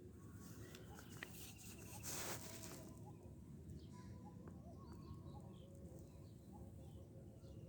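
Quiet background with a steady low hum and faint, scattered bird chirps, and a short burst of hiss about two seconds in.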